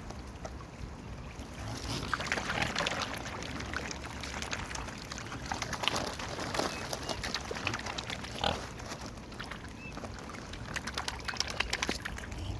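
Mute swans and ducks feeding at the water's edge: rapid, irregular clicking and splashing of bills working in the water, with a few short calls.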